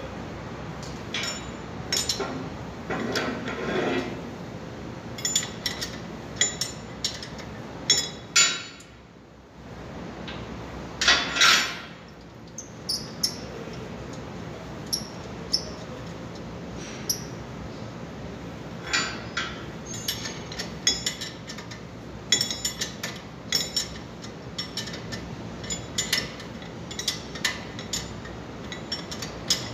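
Metal hand tools clicking and clinking against a car's rear brake caliper and its bracket bolts, with two short, louder scraping sounds about eight and eleven seconds in.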